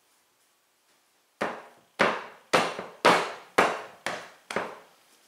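Seven thumps, about two a second, starting about a second and a half in, as hands press and pat crumbly pie-crust dough into a rough ball on a marble pastry board.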